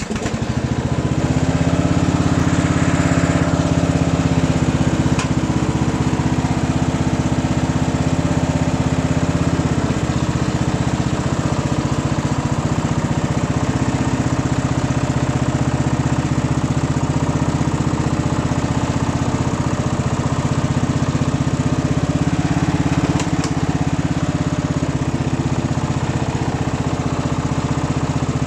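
Craftsman lawn tractor's 15 hp Briggs & Stratton engine, just started, running steadily.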